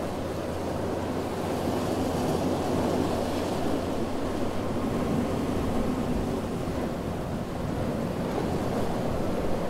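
Ocean surf washing onto a beach: a steady rush of waves that swells and eases.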